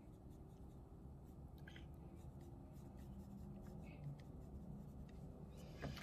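Faint scratching of a pencil on drawing paper, sketching a few short strokes.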